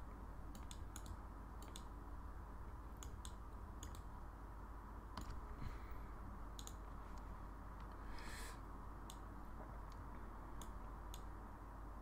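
Scattered, irregular computer mouse clicks, faint and sharp, over a steady low hum.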